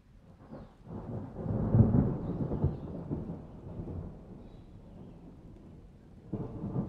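Thunder rolling: a low rumble builds about a second in, is loudest near two seconds and fades slowly away, then a second rumble breaks in near the end.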